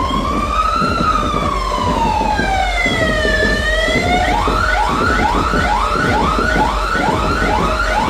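A siren wailing slowly up and then down in pitch, switching about four seconds in to a fast yelp of short rising whoops, about two a second, over a dense low din.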